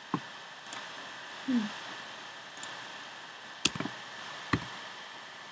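Several scattered sharp clicks from a computer keyboard and mouse over a steady hiss. About one and a half seconds in there is a short low sound that falls in pitch.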